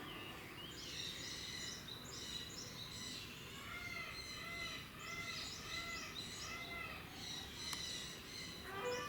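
Small birds chirping in quick, repeated calls over a low background hiss, with a run of evenly spaced, arching notes in the middle.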